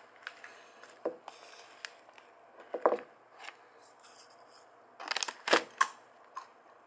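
A plastic snack bag of five-spice peanuts crinkling as it is handled, then peanuts clattering into a small ceramic cup in a quick cluster of clicks about five seconds in.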